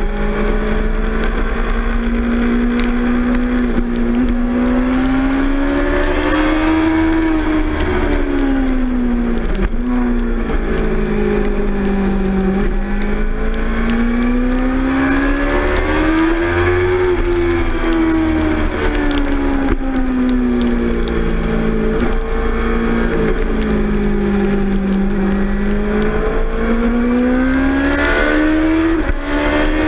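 A 2006 Suzuki GSX-R600's inline-four engine heard from onboard. Its pitch rises and falls in three slow sweeps, over a steady rush of wind and wet-road spray.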